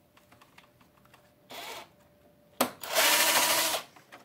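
Cordless screw gun unscrewing a screw from a TV's chassis: a short blip of the motor, then a run of about a second.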